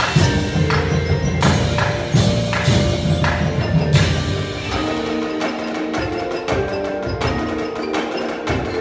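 A percussion ensemble playing live: marimba and other mallet-keyboard notes ring over sharp, frequent struck hits and low drums. The low drums drop out about five seconds in, leaving the keyboard notes and hits.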